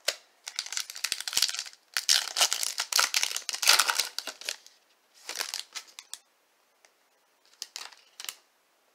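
The foil wrapper of a Topps Chrome trading-card pack crinkling and tearing as it is torn open by hand, in four bursts of crackling separated by short pauses.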